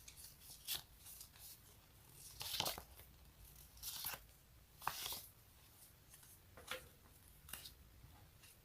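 Sticky material being peeled apart: about six short, crackly peeling sounds at irregular intervals, the loudest a few seconds in and again about five seconds in.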